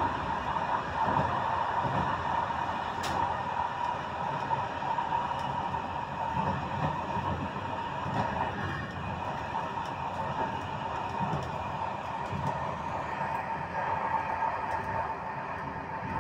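Passenger train running, heard from the rear end of the last carriage: a steady rumble of wheels on the rails with a steady whine over it, and one sharp click about three seconds in.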